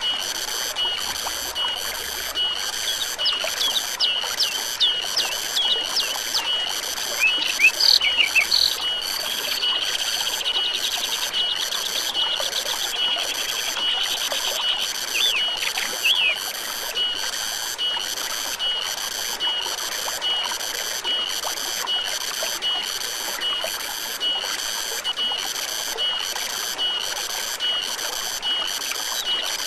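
Forest stream running steadily, with a high-pitched call pulsing about one and a half times a second throughout. Birds chirp and trill over it in the first half.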